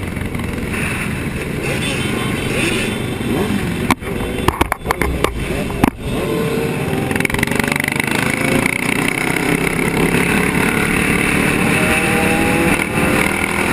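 A pack of sport motorcycles riding at speed, with heavy wind rush over a helmet-mounted microphone. The sound cuts out briefly several times about four to six seconds in. In the second half, engine notes rise in pitch again and again as bikes accelerate.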